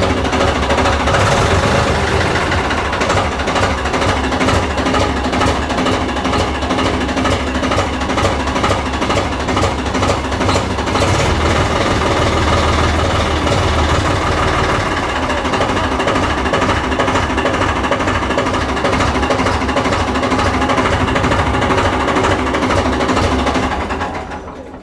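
Farmtrac 6050 4x4 tractor's diesel engine running steadily while the tractor stands, a loud rapid clatter that dies away when the engine is shut off near the end.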